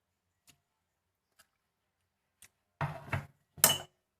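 Kitchen handling sounds: a few faint clicks, then two louder clattering knocks near the end, the second with a short ring, as of a utensil or container set down or knocked.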